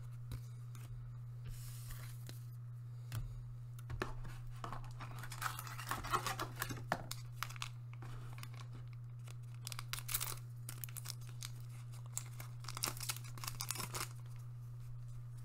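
Foil trading-card booster pack wrapper being crinkled and torn open by hand, in two spells of rustling and tearing, over a steady low hum.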